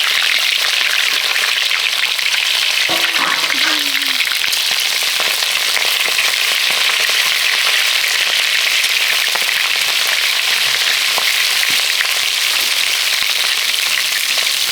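Food frying in hot oil in a pan: a steady, loud sizzle with fine crackles.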